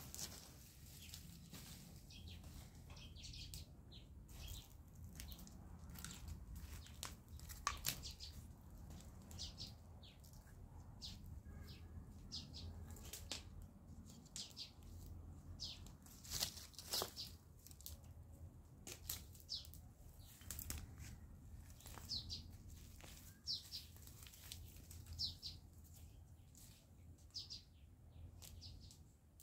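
Dry brush and dead stems rustling and crackling in irregular short snaps as they are scraped and poked with a stick, with brief high bird chirps scattered throughout.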